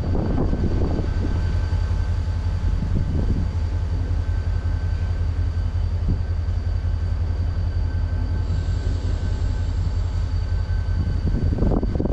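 Distant EMD SD45-2 diesel locomotive, with its 20-cylinder two-stroke engine, running with a steady low rumble.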